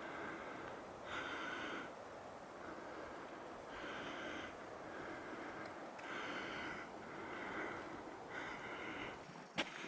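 Heavy, labored breathing of a man climbing a steep mountain trail, about one loud breath every second or so, the strain of the uphill hike. A sharp click near the end.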